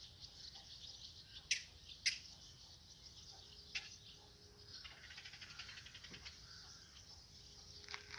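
Short, sharp bird chirps, two loud ones about a second and a half and two seconds in and another near four seconds, over a steady high chirring of insects.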